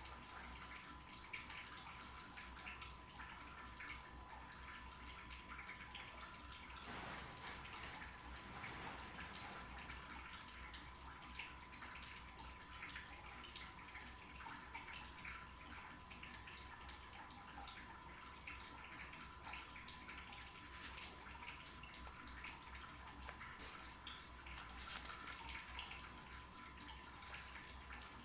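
Quiet indoor room tone: a steady low hum and a thin steady tone, with faint scattered ticks and soft rustles.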